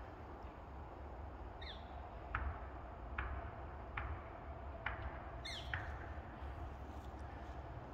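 Footsteps on dry grass, pine needles and cones, about one step a second, with a bird giving a short falling squawk twice, near two seconds in and again after about five and a half seconds.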